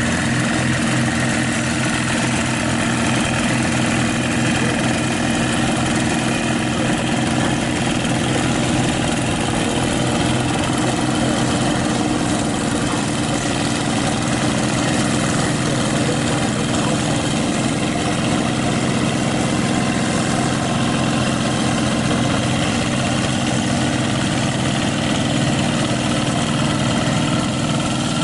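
Single-cylinder diesel engines of two walk-behind hand tractors running together at high throttle as they are driven through paddy mud, a loud, steady, rapid pulsing with no let-up.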